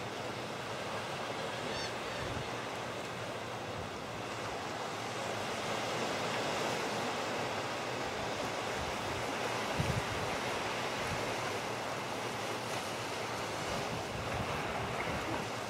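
Steady wind rushing across the microphone, with a few low buffets, the strongest about ten seconds in.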